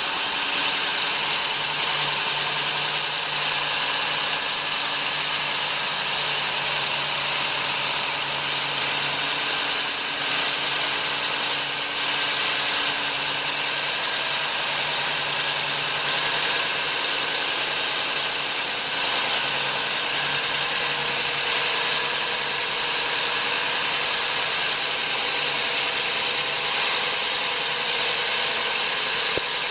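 Cuttronix CM-10S3 single-phase 230 V, 3.0 kW core drill motor running steadily under load, turning a 200 mm core bit as it cuts: an unbroken motor whine with a strong high hiss.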